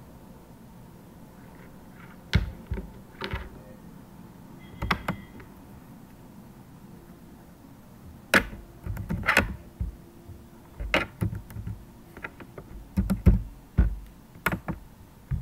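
Computer keyboard keystrokes and mouse clicks: scattered, irregular sharp taps, coming in quicker clusters in the second half.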